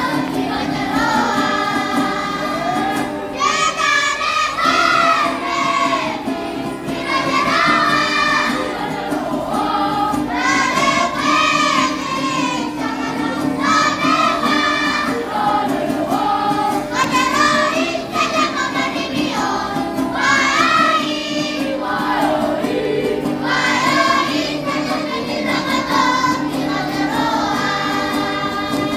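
Children's choir singing together with women's voices, a church song sung in phrases of a few seconds each.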